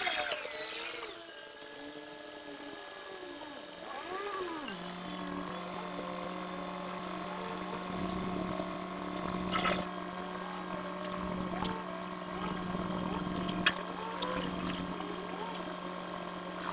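Engine of the construction machinery at a roadworks site running with a steady hum from about five seconds in, with a few sharp clanks over it. Before the hum sets in there are sounds that slide up and down in pitch.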